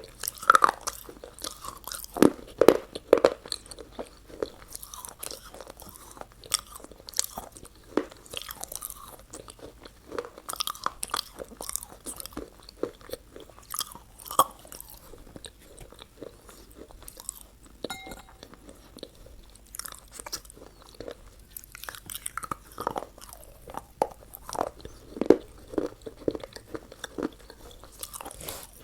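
Close-miked biting and crunchy chewing of McDonald's fast food: irregular crisp crunches one after another, easing into a quieter stretch around the middle before the chewing picks up again.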